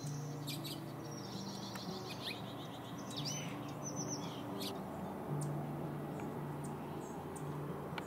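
Wild songbirds calling: a quick high trill about a second in, then a cluster of sharp chirps around three to five seconds, fewer after. Soft background music with sustained low notes runs underneath.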